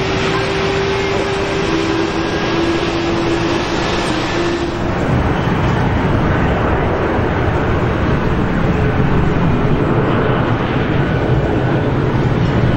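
Boeing 737 jet engines: first a steady whine over a hiss from a 737 rolling on a wet runway. About five seconds in, this gives way to the deep, steady rumble of a Boeing 737-800's CFM56 engines on final approach.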